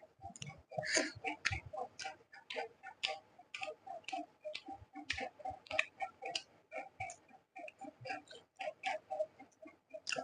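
Close-miked wet chewing and lip-smacking of a mouthful of rice and egg curry: a quick, irregular run of small clicks and squelches.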